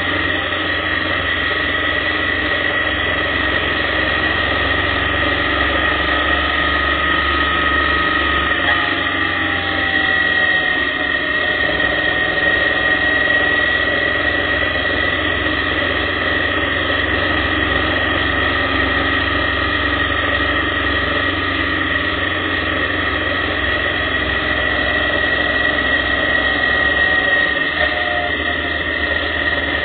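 Motorcycle engine running at road speed through a series of curves, with wind and road noise and a steady high whine. The engine note shifts about nine seconds in and again near the end.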